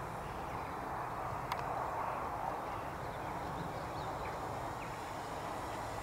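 E-flite Turbo Timber Evolution electric RC plane's motor and propeller heard at a distance, a steady whir, with a single sharp click about one and a half seconds in.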